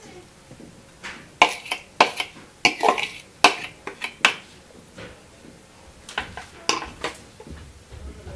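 Metal spoon and ceramic bowls clinking and scraping as salad is spooned from a mixing bowl into a serving bowl: a quick run of sharp clinks in the first half and a few more about six to seven seconds in.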